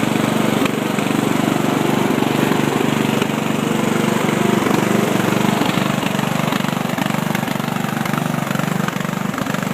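Riding lawn mower engine running steadily as the mower is driven.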